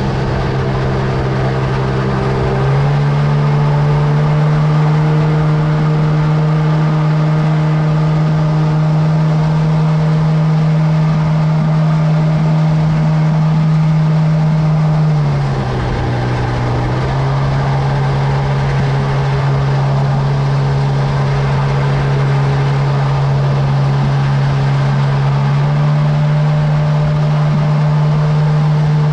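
An aluminum river boat's motor running steadily at speed. Its pitch steps up a little about three seconds in, sags briefly about halfway through as the throttle eases, then picks back up a second or two later.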